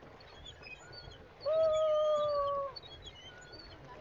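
Small birds chirping in short high notes throughout, and about halfway in a single loud held call, steady and slightly falling in pitch, lasting just over a second.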